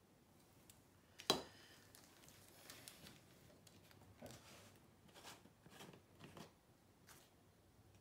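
Quiet handling sounds as a painted canvas is turned by hand on a cake spinner: one sharp knock about a second in, then scattered faint rustles and soft taps.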